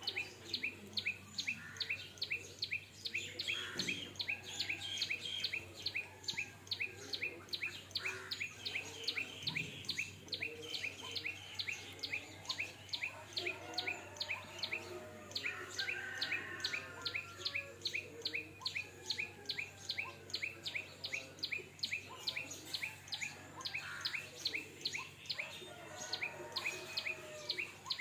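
A steady run of sharp, high chirps, about three to four a second, over softer, scattered chirping and warbling calls.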